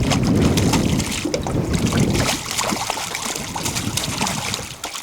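Wind buffeting the microphone, heaviest for the first two seconds, over water splashing and lapping against the boat in a choppy lake.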